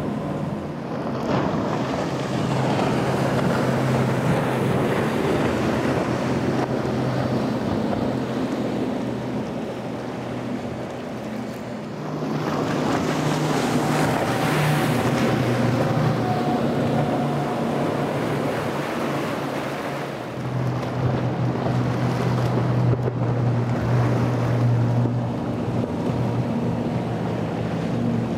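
Outboard-powered center-console boats running at speed, one after another: a steady low engine drone under the rush of spray and wind on the microphone.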